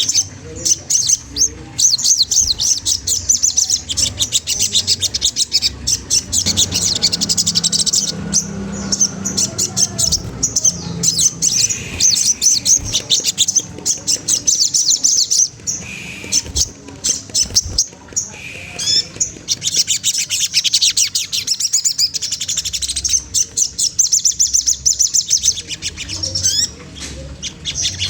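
A sogon (ashy tailorbird) singing its 'trotol' song: long runs of very fast, high repeated notes, with brief pauses and a few short lower notes around the middle.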